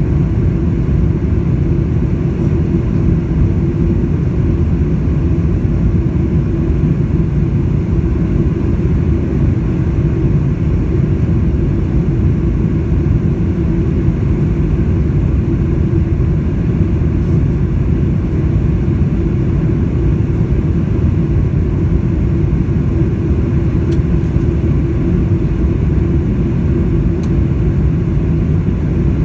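Cabin noise inside a Boeing 747-400 airliner after takeoff: a loud, steady low rumble from its four jet engines and the airflow, with a faint steady hum above it.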